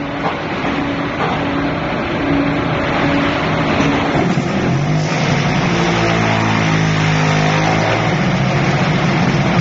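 QT10-15D automatic concrete hollow block making machine running in production: a loud, dense, steady mechanical clatter and rumble. About halfway through it grows louder and a humming set of motor tones comes in, some of them stepping down in pitch.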